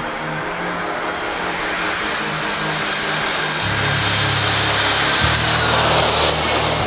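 Twin-engine jet airliner on final approach with gear down, passing low overhead: jet noise with a high engine whine builds to a peak as it goes over, the whine dropping slightly in pitch near the end. Electronic music with a pulsing bass beat plays underneath.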